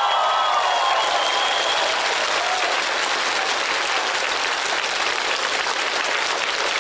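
Arena audience applauding steadily, with some cheering voices over the clapping in the first two seconds.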